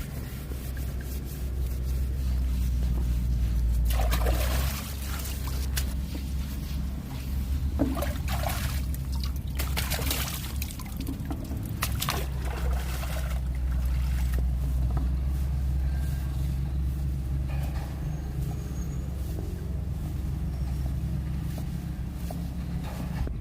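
A boat's engine running with a steady low hum, with water splashing and pouring in several bursts through the first half.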